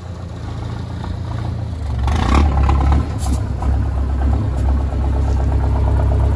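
GAZ-63 truck's swapped-in Mercedes engine running, steady at first and then louder about two seconds in as it pulls the truck up onto concrete blocks. There are a few knocks as the truck climbs.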